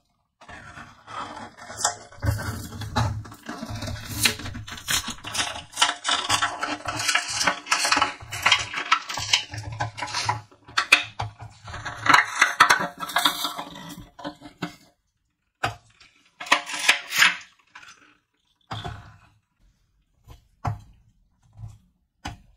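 Crinkling and crackling of a plastic blister pack and a small clear plastic bag being handled and torn open, then scattered clicks and taps as small plastic clips are set down on a table in the last third.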